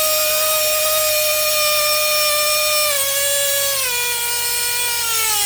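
A nitro RC car's small two-stroke glow engine screams at a high, steady pitch. The pitch drops a step about three seconds in, again about a second later, then slides steadily lower near the end.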